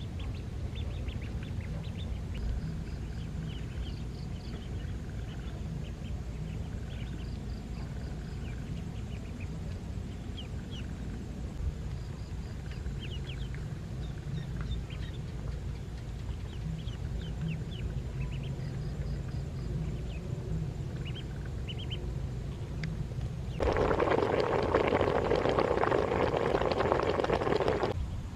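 A flock of ducklings peeping, many short high calls overlapping without pause. About five seconds before the end a loud rushing noise starts and drowns them out, then stops just before the end.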